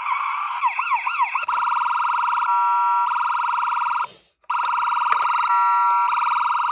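Road Rippers toy police SUV's electronic siren playing through its small speaker, set off by pressing the roof light-bar button: a few quick wailing sweeps, then a fast warbling tone broken by a short steady stretch. It cuts off about four seconds in and starts again half a second later with the same warble.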